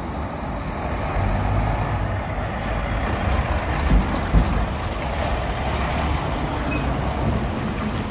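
Scania eight-wheel tipper truck's diesel engine running and its tyres rolling as it drives slowly past close by, a steady low rumble, with a couple of thumps about four seconds in.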